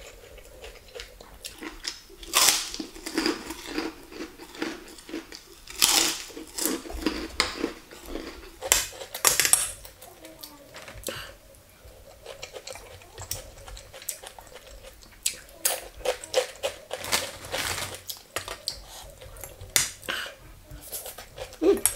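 Mukbang eating sounds: a spoon and fork clinking and scraping on a plate, with chewing and the crunch of a fried cracker being bitten, in sharp irregular clicks and crackles.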